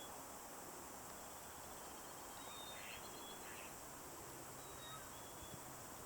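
Faint outdoor ambience with a few distant, high, thin whistled songbird calls, some going from a higher note to a lower one.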